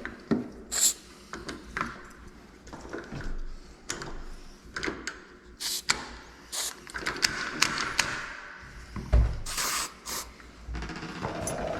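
Door lock being rekeyed: a run of small metal clicks, taps and scrapes as the lock parts are handled, with a short hiss about nine seconds in.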